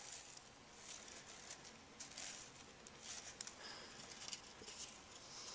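Faint dry scratching and small clicks in short bursts about once a second: the interwoven bands of a selective-laser-sintered nylon cup rubbing against each other as it is flexed in the hands.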